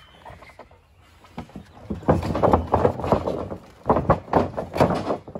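A quick run of thumps and slaps from wrestlers' feet and bodies striking and moving on a backyard wrestling ring's mat, starting about two seconds in.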